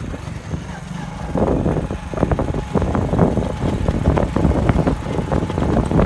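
Wind buffeting the microphone as it is carried along a road on a moving vehicle, in irregular gusts. It is quieter for about the first second and a half, then louder.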